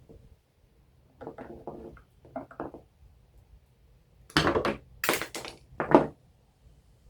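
Knocks and clatter of small trimmer parts and tools being handled during a carburetor swap: a few soft knocks, then three louder sharp clattering hits about four to six seconds in.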